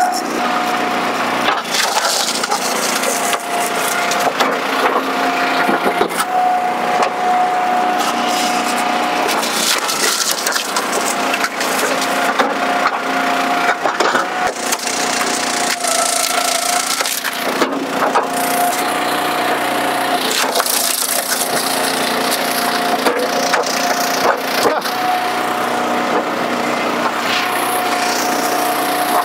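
Eastonmade commercial log splitter forcing northern red oak rounds through its box wedge, the wood cracking and splintering apart. Under it the machine's steady whine drops out and returns every few seconds.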